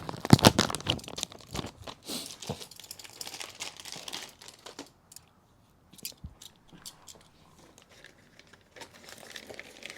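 Packaging crinkling and tearing as it is pulled open by hand. The crackle is loudest in the first second or two, thins out, and ends in a few scattered rustles.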